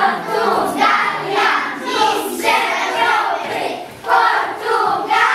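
A group of children chanting loudly together in unison, with a brief break about four seconds in.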